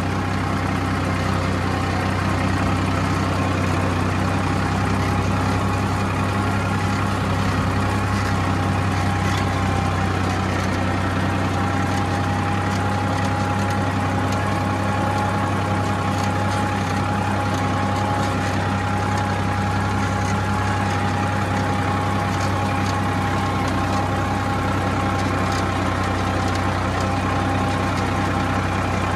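Farmtrac 60 Super Max tractor's diesel engine running steadily at a constant speed, with a faint steady whine above the engine note.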